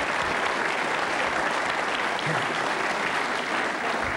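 A large theatre audience applauding, a dense, steady clapping.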